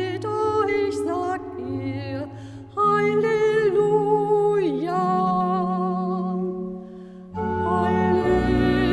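A woman singing a German Easter hymn over organ accompaniment, a single melody line with vibrato held over sustained low notes. The singing pauses briefly twice between phrases.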